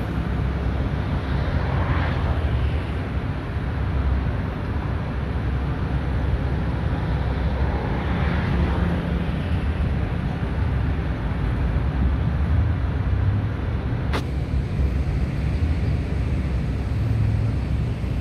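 Steady low rumble of city traffic, swelling twice, about two seconds in and again around eight seconds, with a single sharp click near fourteen seconds.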